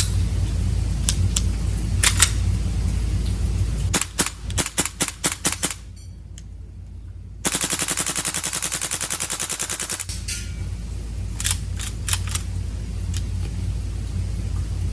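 Tokyo Marui AKM gas blowback airsoft rifle firing. There are a few single shots, then a quick string of shots about four seconds in, then a sustained full-auto burst of about two and a half seconds, all over a steady low rumble.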